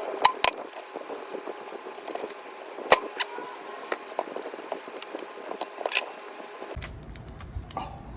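Copper winding wire being pried and pulled out of a compressor motor's stator: a run of small metallic clicks, scrapes and wire rustling, with a sharp clack about three seconds in.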